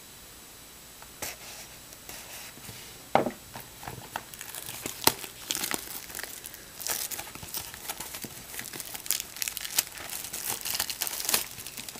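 Plastic wrapping on a trading-card hobby box being torn open and crinkled: scattered crackles, one sharp knock about three seconds in, then a long run of crisp crinkling and tearing.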